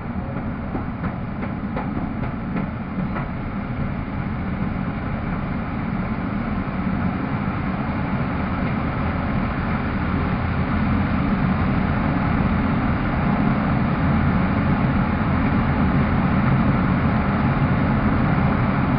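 Pitts S-2B's six-cylinder Lycoming engine and propeller running steadily in cruise, with wind noise, growing gradually louder.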